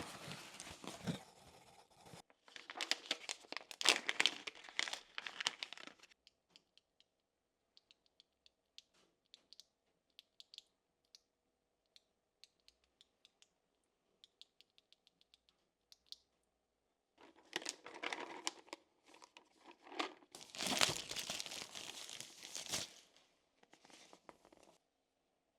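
Packaging being torn open and crinkled, in several rustling stretches, with scattered small clicks in between.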